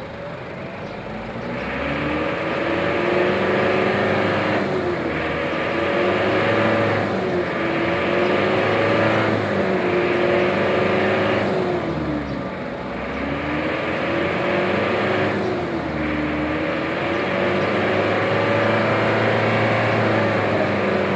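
Mitsubishi Pajero 4M40 diesel engine revved up and held, then let back down, about six times in a row. It is being free-revved toward about 3,500 rpm to check for black exhaust smoke.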